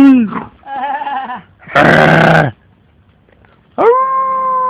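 Dogs howling in drawn-out, bleat-like calls, the 'sheep' sound they have been coaxed into. A falling howl ends at the start, a quieter wavering call follows, then a short harsh bark-like yowl, and after a pause a long steady howl begins near the end.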